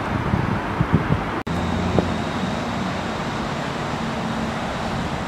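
Outdoor city ambience: steady traffic rumble, with wind gusting on the microphone in the first second or so. It drops out briefly about a second and a half in, then runs on more evenly with a faint low hum.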